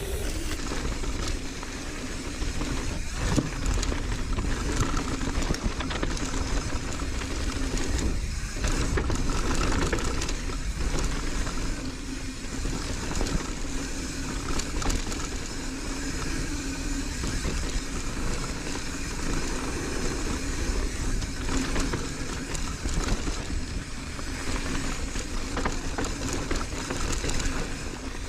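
Mountain bike riding down a bike-park trail at speed: wind buffeting the camera microphone and knobby tyres rolling over dirt, with a few knocks as the bike hits bumps.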